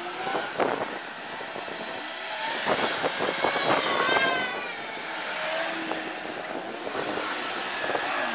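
Motor scooter passing on the street, its small engine revving and rising in pitch for a couple of seconds from about two and a half seconds in, over steady traffic noise.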